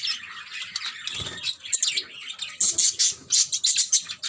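Small pet birds chirping and squawking, with many quick, high-pitched calls overlapping one another.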